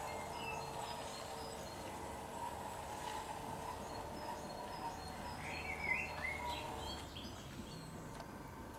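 Birds chirping over the steady hum and rumble of an LGB garden-scale electric locomotive and its freight wagons rolling along the track; the hum drops away about seven seconds in.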